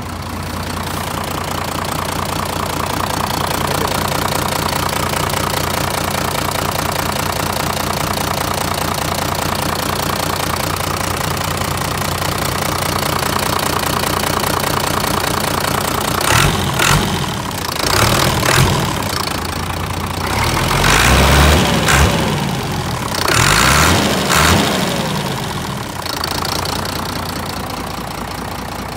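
Iseki 8020 compact tractor's diesel engine idling steadily, with several louder surges in the second half where the pitch rises and falls.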